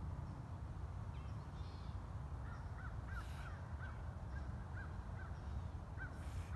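A bird calling in a run of short, clipped notes, about two a second, starting a little over two seconds in, over a steady low rumble.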